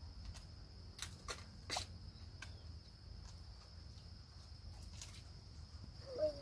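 Insects chirring steadily in a high, even drone, with a few scattered sharp clicks and a short pitched call near the end.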